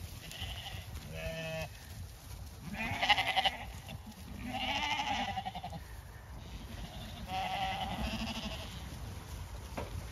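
Zwartbles sheep bleating as the flock runs in, about four separate bleats with the loudest about three seconds in.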